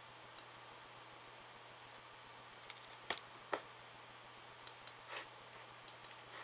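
Computer mouse button clicks, faint against a steady hiss: two sharper clicks about three seconds in, then several lighter ones.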